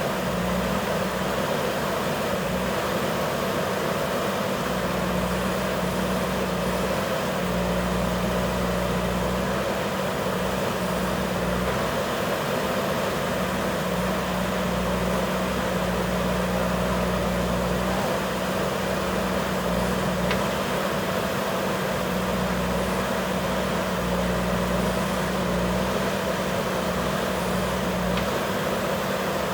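JCB backhoe loader's diesel engine running steadily as the machine works, with a low drone that strengthens for spells of a few seconds and then eases.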